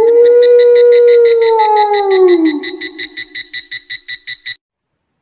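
Synthesized intro sound effect: a held electronic tone that swells in and then slides down in pitch about two seconds in, over a quick, even pulsing of about six beats a second that fades out and stops near the end.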